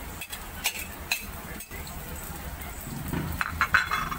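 Chopped garlic sizzling in hot oil in a wok, with the clicks and scrapes of a metal spatula against the plate and pan. A cluster of louder scrapes comes near the end as the garlic is stirred.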